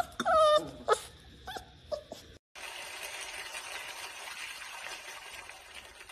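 Yellow Labrador puppy howling in a few short, wavering, downward-sliding cries. Then, after a sudden cut, a steady faint hiss of background noise.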